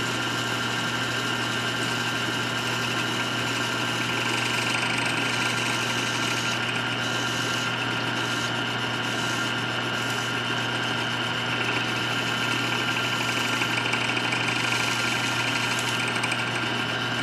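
Small wood lathe running at low speed with a steady motor hum and whine, while a strip of sandpaper is held against the wood-inlaid ring spinning on the mandrel, smoothing the joins of the pieced bat wood with a light rubbing hiss.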